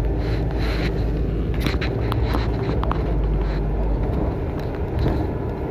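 A bus in motion, heard from inside: a steady deep engine and road rumble with a few light rattles and clicks; the deepest rumble eases about four seconds in.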